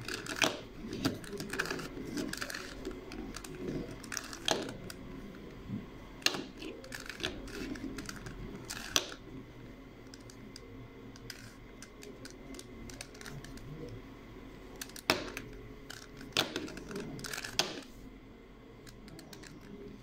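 A plastic 3x3 Rubik's Cube being turned by hand, its layers clicking and clattering in irregular runs of quick clicks, a few sharper ones standing out.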